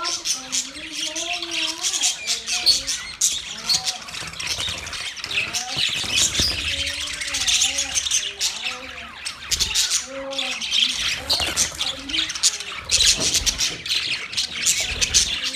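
Budgerigars chattering and warbling continuously: many fast, overlapping high chirps, with lower wavering warbled calls rising and falling underneath.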